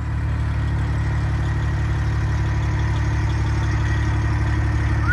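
A vehicle engine running at a steady idle, its low rumble building slightly in the first second and then holding even.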